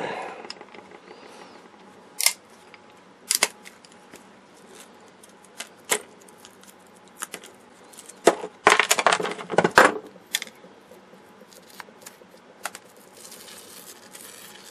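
Pliers cracking apart a small capacitor's brittle plastic casing: scattered sharp snaps and clicks, then a dense crunching cluster about nine seconds in. Near the end comes faint crinkling as the rolled foil and dielectric inside are pulled apart.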